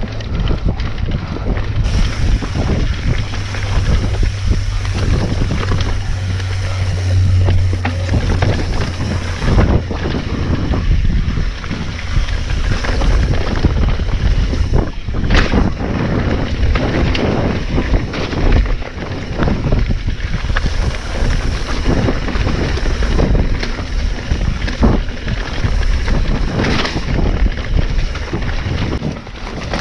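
Mountain bike riding downhill over a dirt trail: steady wind rush on the camera microphone, heaviest in the first nine seconds or so, with frequent knocks and rattles as the bike hits bumps.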